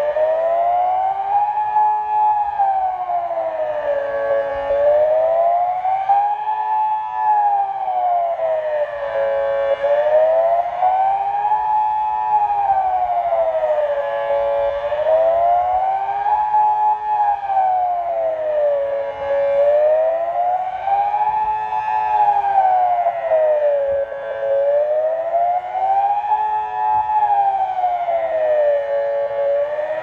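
Kockum Sonics Delta 4 electronic civil-defence siren, still on its original Delta 4 ("grey") controller, sounding the Swiss general alarm. Its wailing tone rises and falls steadily about once every five seconds.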